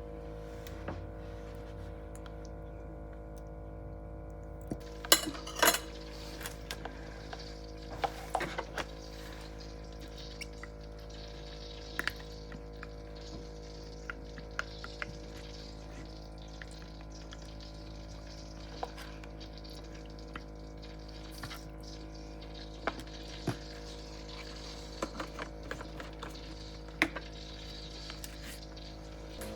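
Kitchen utensils clinking and clattering against a pan and dishes every few seconds while a sauce is stirred and ingredients are measured. The clinks are loudest twice near the start. A steady hum runs beneath them.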